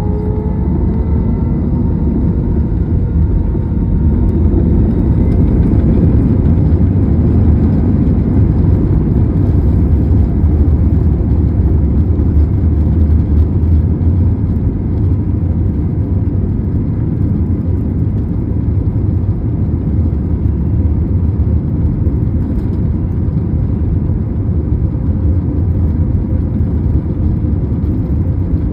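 Airbus A321 at takeoff power, heard inside the cabin over the wing: the jet engines and the takeoff roll make a loud, steady low rumble. It swells over the first several seconds as the jet accelerates down the runway, then holds steady.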